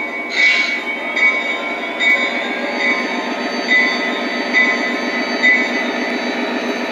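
Lionel Southern Pacific heritage diesel locomotive's onboard sound system: diesel engine running with an even, pulsing throb as the train pulls away. A bell rings about every 0.8 s, and a short air hiss comes about half a second in.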